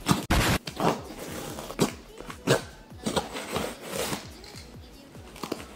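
Knife cutting through packing tape and cardboard on a shipping box, a series of short scraping rasps with a longer one about half a second in.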